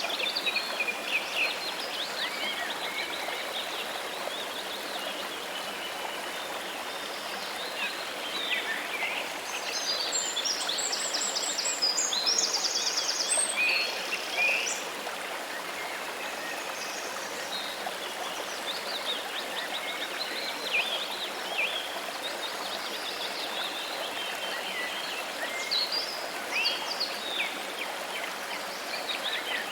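Steady rush of falling and flowing water from a waterfall, with birds chirping over it now and then and a louder, quick run of repeated high notes about a third of the way in.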